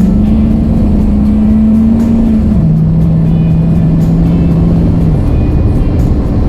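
2002 Chevy Suburban on the move, heard from inside: a heavy low rumble of road and engine, with a steady drone that rises a step at the start, drops back about two and a half seconds in, and fades out about five seconds in.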